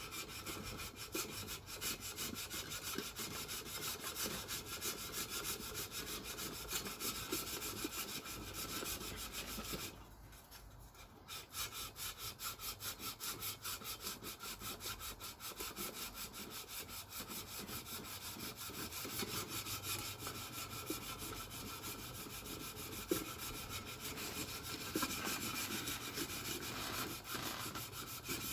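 Rhythmic back-and-forth scraping of an engine part being rubbed flat on sandpaper by hand to take out scratches, with a brief pause about a third of the way in.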